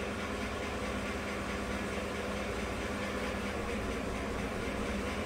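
2015 GMC Sierra's 5.3-litre direct-injection V8 idling steadily during a scan-tool injector flow test, cylinder three being tested for a fuel-imbalance fault.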